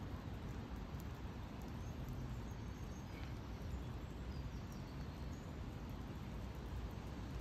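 Outdoor ambient noise: a steady low rumble with a few faint, short high chirps.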